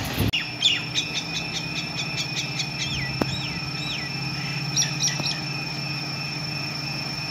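A bird singing a quick run of repeated chirps, each sliding down in pitch, over a steady thin high whine and a low hum. The chirps thin out after about five seconds.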